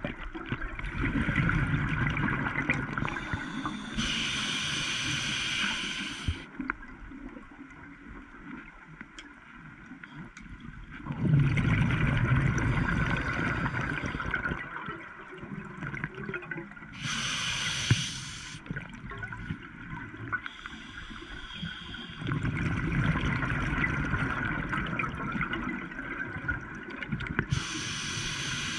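Scuba diver breathing underwater through a regulator: slow breaths about ten seconds apart, each a bubbling rush of exhaled air and a short, high hiss, with quieter pauses between.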